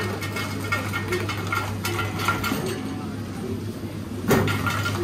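Convenience-store background: a steady low hum with faint distant voices and small clinks, and one brief louder sound about four seconds in.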